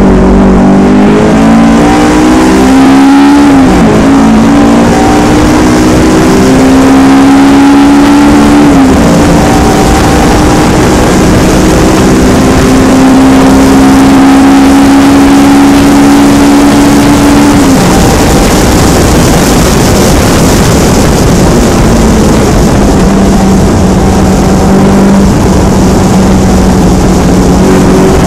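Honda S2000's four-cylinder engine heard from inside the cabin, pulling hard on a track lap. Its pitch climbs and drops back three times, about three and a half seconds in, about nine seconds in and near eighteen seconds, then holds steadier, over a loud rushing noise.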